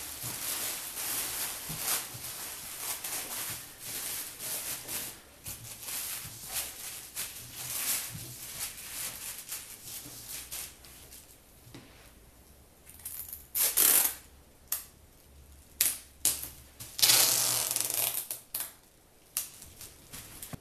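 Thin plastic trash bags crinkling and rustling as they are handled and smoothed, with several short, louder bursts of rustling in the second half.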